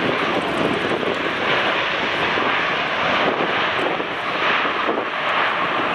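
Rolls-Royce Trent XWB turbofans of an Airbus A350 airliner coming in to land: a steady, even rush of jet noise.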